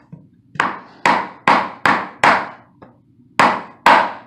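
Rubber mallet tapping a tongue-and-groove tapping block to drive a vinyl plank's groove home and close the gap in the joint. It gives quick sharp knocks, five in a row, then after a pause of about a second, two more.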